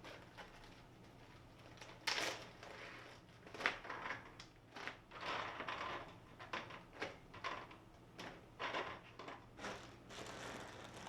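A dog chewing a treat: a run of irregular crunches and clicks starting about two seconds in.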